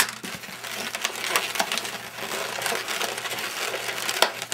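Latex twisting balloons being twisted and handled, rubbing and squeaking against each other and the gloves, with one sharp snap near the end.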